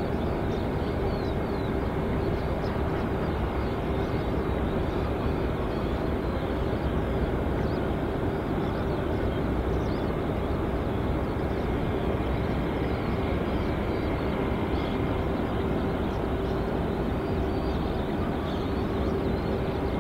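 Boeing 747's four Rolls-Royce jet engines heard from afar on approach as a steady rumble, with a faint constant hum through it.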